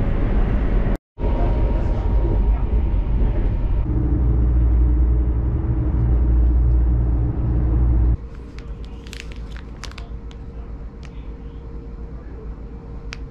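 Chinese high-speed train's running noise inside the carriage, a loud steady low rumble. About eight seconds in it gives way to a much quieter cabin with a faint steady hum, where a plastic-wrapped wet-towel packet is handled with a few light crinkles and clicks.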